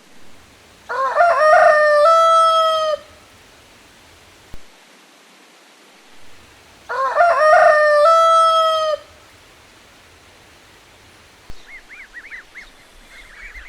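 Rooster crowing twice, each cock-a-doodle-doo about two seconds long and ending on a long held note. Near the end, faster, fainter honking calls of geese begin.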